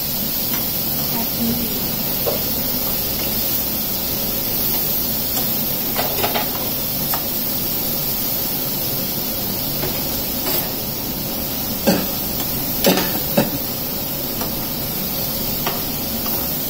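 Spatulas stirring in metal pans on a gas stove, with a few sharp clinks of metal on metal, over a steady hiss of frying.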